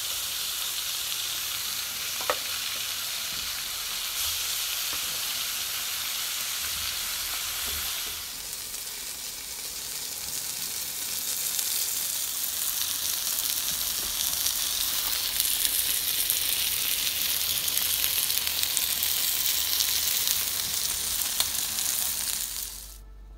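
Marinated chicken thighs sizzling on a barbecue grill: a steady hiss that dips briefly about eight seconds in, with a single click a couple of seconds in.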